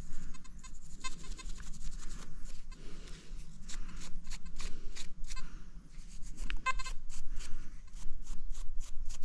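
A wooden stick scraping caked soil off a small dug-up metal lid, the cap of an old salt shaker. It makes a run of short, irregular scratching strokes that come faster in the second half.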